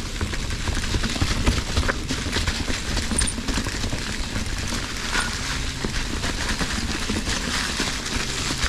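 Fezzari Cascade Peak mountain bike ridden along a rough dirt trail: tyres rolling over the ground with a steady rumble and many quick clattering knocks as the bike rattles over bumps and rocks.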